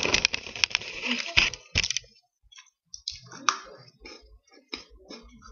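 Handling noise from the computer's microphone as it is moved and bumped: a dense rustle with several knocks for about two seconds, then quieter scattered clicks.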